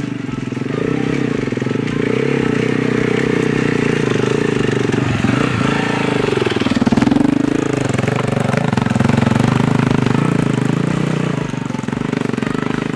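Adventure motorcycle engine running under way, a steady stream of exhaust pulses; the revs drop about six seconds in and then climb back up.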